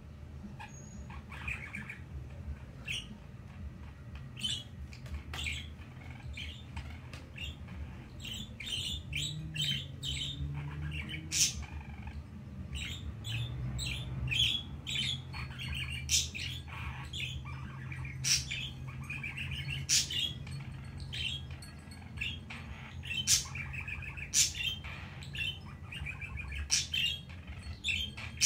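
Budgerigar chattering and warbling: a long run of short chirps, clicks and warbled phrases, busier in the second half.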